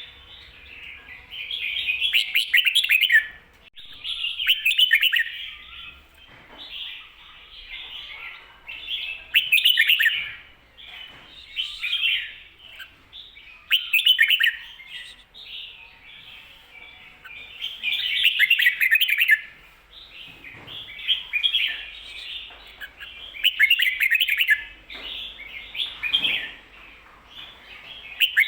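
Red-whiskered bulbul singing its doubled 'kho-ta-ra' song, short bright warbled phrases repeated about every two seconds.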